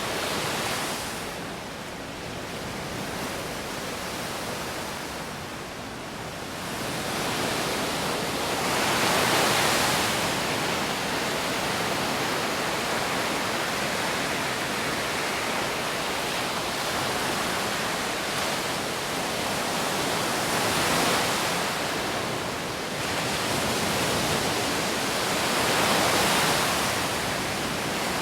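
Steady rushing noise of wind and rain by the sea. It swells and ebbs every several seconds, with louder surges about a third of the way in and again near the end.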